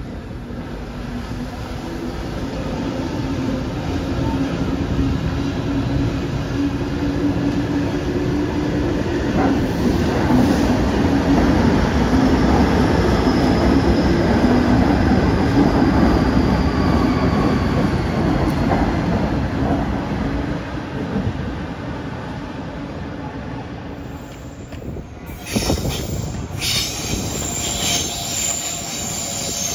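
Sydney Trains double-deck electric train passing close by: a rumble of wheels on rail and motor hum that swells loud and then fades, with a faint high whine falling in pitch. About 25 seconds in the sound cuts abruptly to another passing train with high-pitched squealing.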